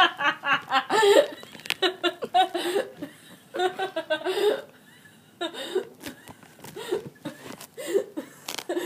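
Girls laughing uncontrollably in rapid fits, with catches of breath between them. The laughter is loudest in the first second or so and comes in shorter, fainter bursts after about three seconds.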